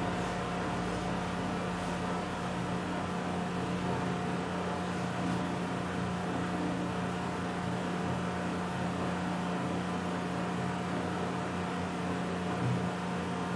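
Steady background hum: a low constant tone with a fainter higher tone above it, over an even hiss, with no speech.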